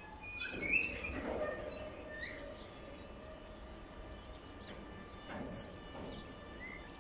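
Songbirds chirping and tweeting over the faint, steady low rumble of a freight train of tank wagons moving slowly through the yard.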